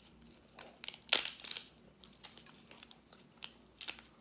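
Crackling and crinkling with several sharp clicks, the loudest burst about a second in: a grilled lobster tail's shell being cut and pulled open to get the meat out.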